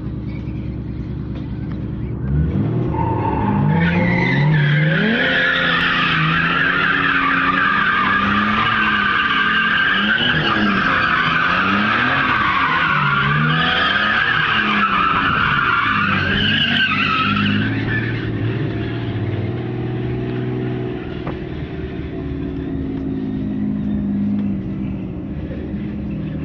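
Nissan Skyline R34 GT-R's twin-turbo straight-six revving up and down as the car drifts, its tyres squealing continuously for about fourteen seconds from a few seconds in. Then the squeal stops and the engine runs on at lower revs.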